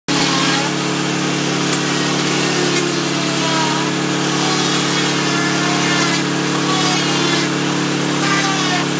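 Paint Shaver Pro paint stripper running against wooden clapboards: a steady motor hum under a continuous rasping scrape as its tungsten carbide blades shave the old paint off, with the debris drawn away through the vacuum hose.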